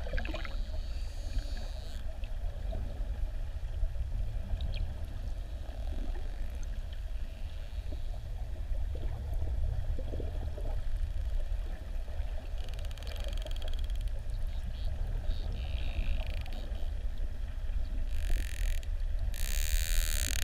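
Underwater sound among a pod of bottlenose dolphins: a steady low water rumble, scattered clicks in the middle and several bursts of high buzzing near the end, typical of dolphin echolocation click trains.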